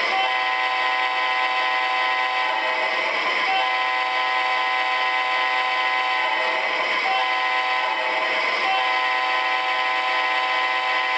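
Five-chime diesel locomotive horn from the Proto-Sound 3.0 sound system of an MTH O-scale GE AC4400CW model, played through its small onboard speaker. It blows four blasts, long, long, short, long (the grade-crossing signal), over the model's steady diesel engine sound.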